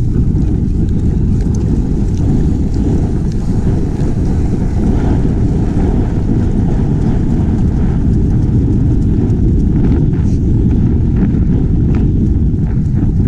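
Heavy, steady low rumble of wind buffeting the camera microphone, with a few faint ticks near the end.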